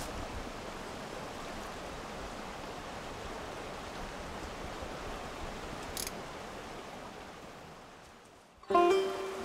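Small woodland stream running, a steady rush of water that fades out about eight seconds in. Plucked-string music comes in loudly near the end.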